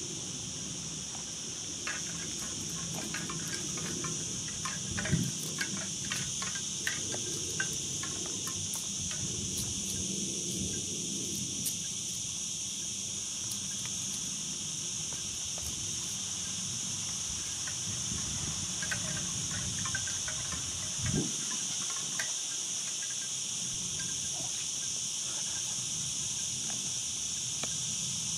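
A steady, high-pitched chorus of insects calling outdoors. A low rumble lies under the first half, with scattered faint ticks and two short low thumps, about five seconds in and again about twenty-one seconds in.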